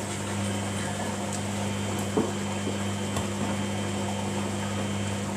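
Samsung washing machine running in service mode: a steady low hum with water sounds, as it takes in or moves water for the wash. A couple of small clicks about two and three seconds in.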